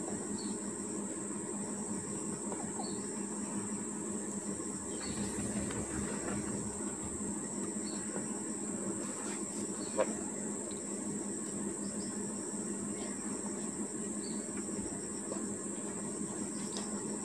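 Insects trilling steadily on one high pitch over a low steady hum. A few short faint high chirps come through, and there is a single sharp click about ten seconds in.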